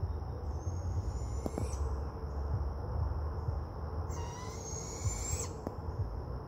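Barred owl giving two high calls that rise in pitch, each lasting about a second and a half; the second, about four seconds in, is the louder. A steady insect trill runs underneath.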